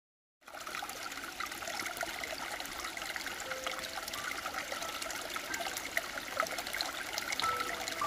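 Shallow stream water trickling and babbling steadily, a dense splashy hiss full of small clicks, starting about half a second in.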